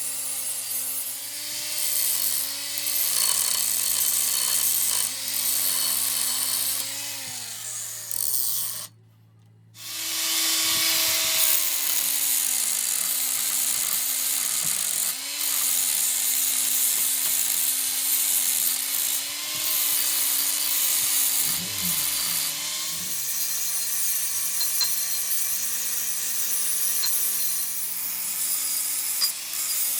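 A power tool working metal: a motor runs at a wavering pitch under a steady scraping, grinding noise. It breaks off for about a second near the middle, then carries on.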